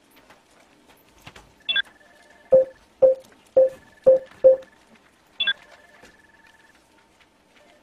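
Electronic animation sound effects: a short high chime, then five short low beeps about half a second apart, and another high chime about a second later, over a faint steady tone.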